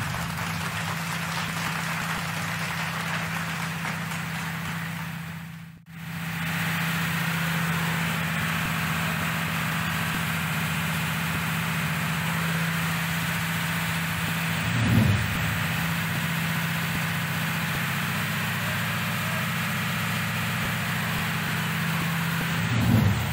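Ship's emergency diesel generator set running steadily with an even hum, broken by a short dropout about six seconds in, and two brief low bumps later on.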